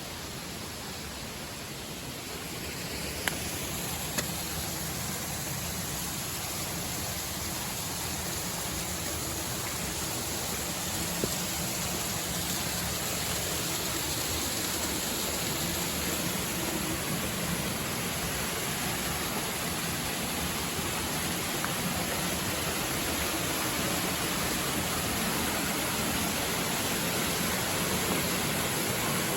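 Rushing water of a mountain stream and waterfall: a steady, even rush that slowly grows louder, as if getting closer to the water. A few faint clicks early on.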